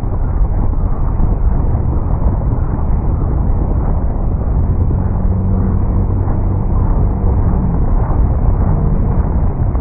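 Helicopter in flight: steady, loud rotor and engine noise, with a low hum showing through for a few seconds around the middle.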